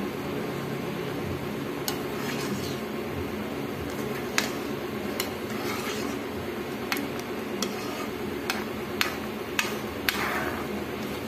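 Metal ladle stirring bukayo, shredded coconut boiling in thick muscovado-sugar syrup, in a nonstick frying pan, with about ten sharp, irregular clinks as it knocks the pan. A steady low hum runs underneath. The candy is nearly cooked and is being reduced until it thickens.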